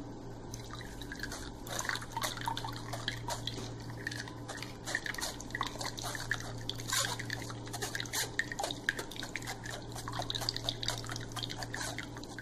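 Cucumber and mint juice dripping and trickling from a mesh strainer into a bowl: many small, irregular drips over a steady low hum.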